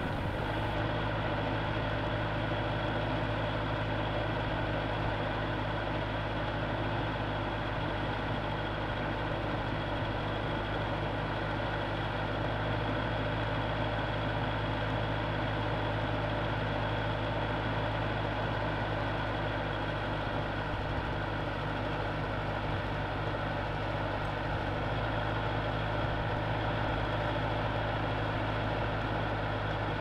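A tractor-loader-backhoe's engine running steadily, heard close up from the machine itself.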